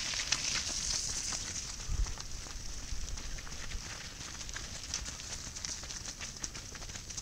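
Footsteps of a group of runners on a wet gravel track: many irregular crunching footfalls.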